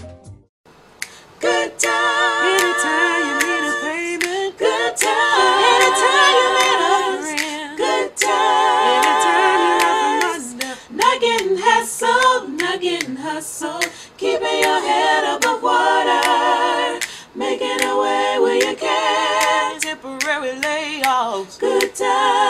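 A cappella vocal group singing in close harmony, with finger snaps keeping the beat; it comes in about a second in, after a brief gap.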